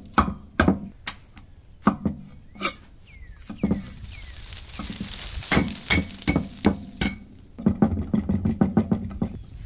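Cleaver chopping on a thick wooden chopping block: separate knocks as it cuts through spring onion, then a fast run of chops near the end as garlic is minced.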